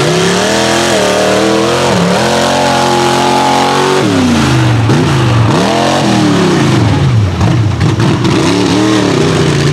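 Mud racing super truck's engine revving hard: the note climbs and holds high for a couple of seconds, drops about four seconds in, then rises and falls in a string of quick revs.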